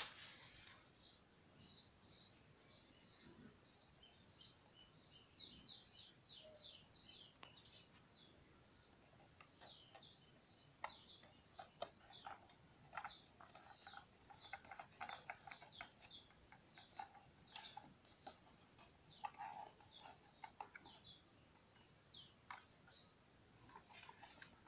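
Faint bird chirping: many short, high, falling chirps in quick runs, thickest in the first eight seconds. Faint clicks and crackles of the plastic blister pack being handled come between about ten and twenty seconds in.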